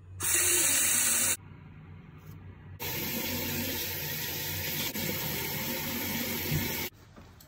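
Bathroom sink tap running into the basin in two stretches: a short loud gush starting a moment in and cut off after about a second, then a steady run from about three seconds in that stops abruptly near the end.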